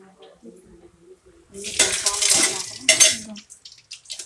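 Steel perforated skimmer scraping and clanking against a steel bowl as freshly fried murukulu are lifted out. The metal noise is loudest from a little under two seconds in, with a second sharp clank about a second later.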